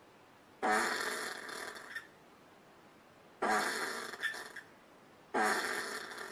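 Common brushtail possum calling: three rough calls, each about a second long, starting suddenly and fading away.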